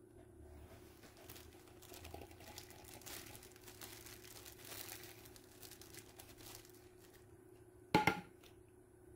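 A thin plastic food-prep glove crinkling as a gloved hand presses and handles seasoned shredded radish in a glass container. One sharp knock comes about eight seconds in.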